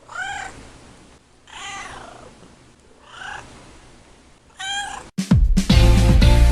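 Domestic cat meowing four times, each meow a short call that bends in pitch. About five seconds in, louder music with a heavy beat cuts in and takes over.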